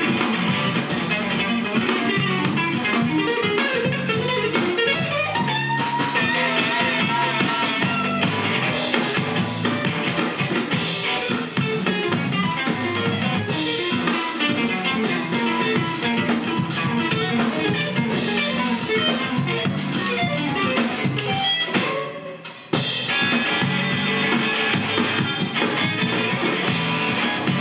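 Live trio of electric guitar, electric bass and drum kit playing together. About three-quarters of the way through, all the instruments stop at once for under a second, then come straight back in.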